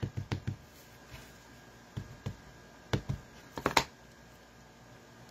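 Light taps and knocks of a stamp ink pad being dabbed onto a clear rubber stamp on an acrylic block, and the block handled on the table: a few quick taps at the start, more around two and three seconds in, and the loudest pair nearly four seconds in.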